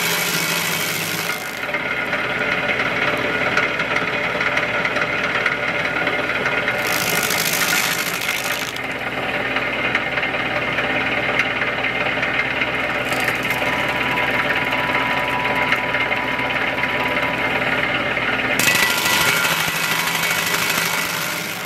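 Tractor-mounted PTO stump grinder (Baumalight 3P24) running steadily on a John Deere 2038R's diesel engine. Its cutting wheel bites into a wood stump in three stretches of louder, hissier grinding and chip-throwing: about the first second and a half, around seven to nine seconds in, and again from about nineteen seconds in.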